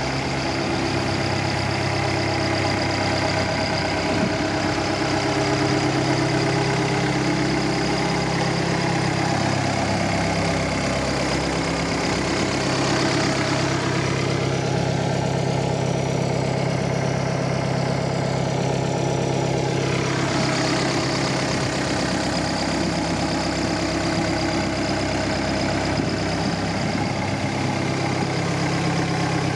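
Hyundai Robex 80CR-9A excavator's diesel engine idling steadily. Its tone changes for several seconds about halfway through.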